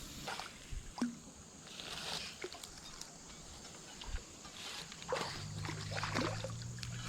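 Light water splashing and sloshing in short bursts, with a steady low hum coming in about five seconds in.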